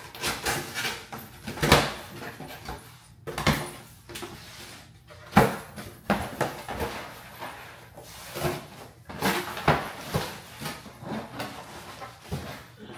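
Cardboard shipping boxes being handled and opened: irregular rustling and scraping, broken by several sharp knocks and bumps.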